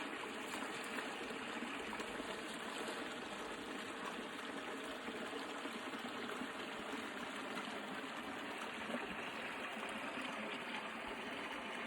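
Steady flowing water of a stream running.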